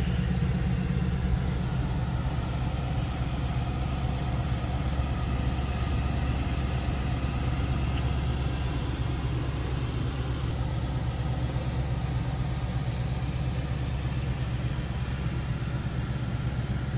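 Ford Mustang's engine idling in Park: a steady, even low hum.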